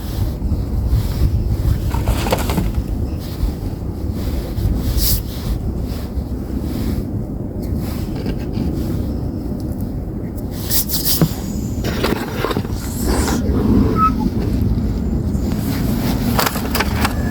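Gym chalk being crushed and crumbled close to the microphone: gritty crunching over a steady low rumble of handling noise, with sharper crunches around eleven seconds in and again near the end.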